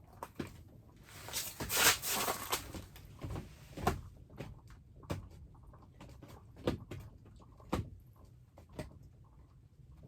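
Scattered, irregular knocks and clicks, with a brief hissing rush about a second and a half in.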